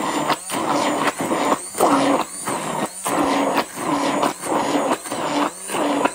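A small dog's claws scratching and digging at a plastic storage box lid, in rapid repeated bouts about two a second.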